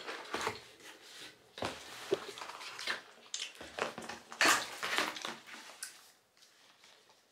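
Irregular rustling and knocking of cardboard and plastic wrapping as a kitchen knife is unpacked, loudest about halfway through and fading near the end.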